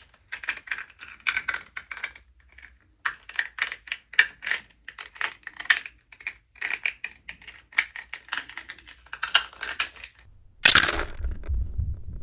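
Foley material being crushed and snapped: an irregular run of crisp crackles and crunches, then one loud crack with a low thump, about ten and a half seconds in.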